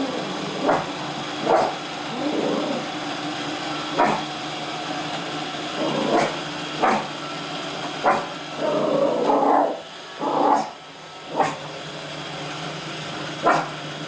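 Dog barking at a running Roomba robot vacuum: single sharp barks every second or two, with a longer, rougher stretch about nine seconds in, over the robot's steady motor hum.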